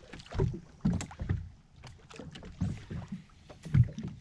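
Small waves lapping and slapping against the hull of a bass boat in irregular splashes and knocks, the strongest slap about four seconds in.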